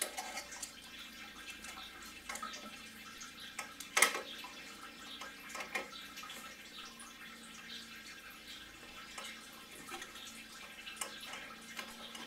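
Engine coolant trickling and dripping out of a heater hose being pulled off the back of a VR6 cylinder head, with small clicks from the hose and clamp being handled. One sharper click about four seconds in.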